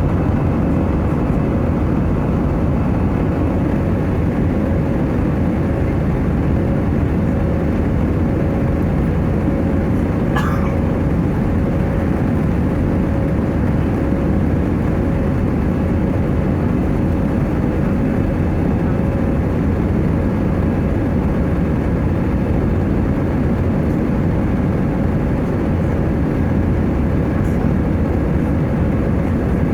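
Airbus A320 cabin noise: the steady rumble of the jet engines and airflow, with a steady hum over it.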